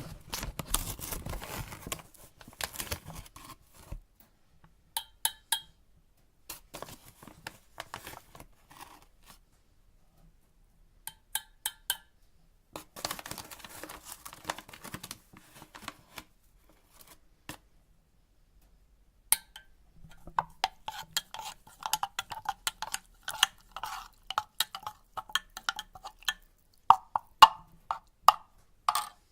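A bag rustling and a metal spoon clinking against a metal cezve, with bursts of rustling near the start and in the middle and a run of quick small clinks over the last several seconds.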